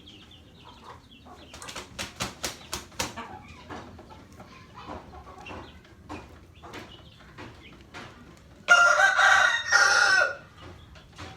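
A rooster crows once, loud, for about a second and a half near the end; it is the loudest sound here. Earlier, a quick run of about six sharp knocks as a garlic clove is smashed flat.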